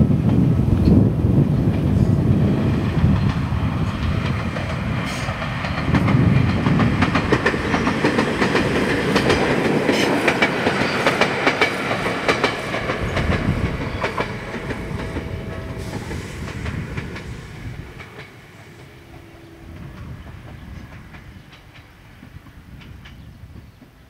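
Two-car electric train of the Ueda Electric Railway Bessho Line running past on jointed track, a low rumble with a run of wheel clacks over the rail joints. The sound fades away about two thirds of the way through as the train moves off.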